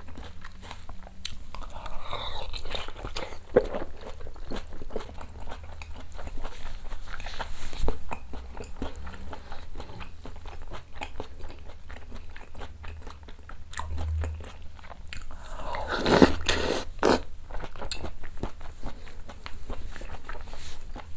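Close-miked mouth sounds of a person eating boiled beef tendon and seaweed soup: wet chewing and biting with many small clicks, and a louder noisy stretch about three-quarters of the way through.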